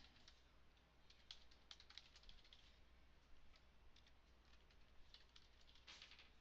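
Typing on a computer keyboard: faint key clicks in irregular runs, with a denser flurry near the end.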